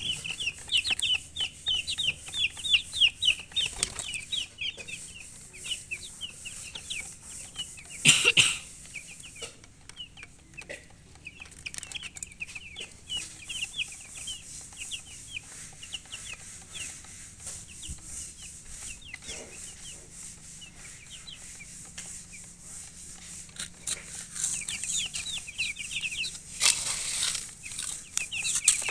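Chicks peeping: many quick, high-pitched chirps in a steady stream, thinning out in the middle and picking up again near the end. A loud rustling burst about eight seconds in and another near the end.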